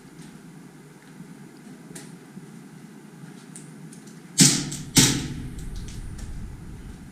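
Two sharp knocks about half a second apart, over a faint steady background hiss.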